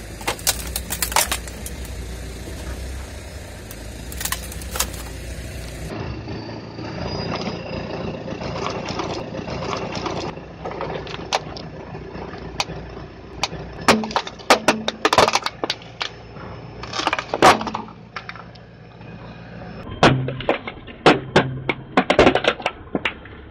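Plastic toy racing car cracking and crunching under a car's tyre, in clusters of sharp snaps as the tyre rolls onto it and flattens it. A car engine hums low under the first several seconds.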